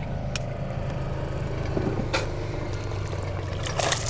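A steady low hum under a few sharp clicks. Near the end comes a brief splash as a hooked bass thrashes into a landing net at the water's surface.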